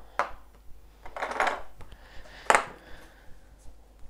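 Hard plastic Play-Doh tentacle tools clattering against each other and the tabletop as they are handled: a click, a short rattle, then one sharper knock about two and a half seconds in.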